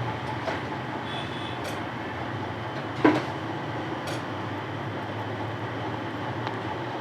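Steady whirring hum of bench equipment, with one sharp tap about three seconds in and a few faint ticks.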